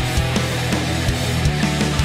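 Background heavy rock music with guitar and a steady drum beat.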